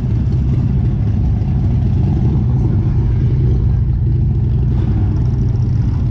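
Steady low drone of a road vehicle's engine and road noise while driving, holding an even pitch.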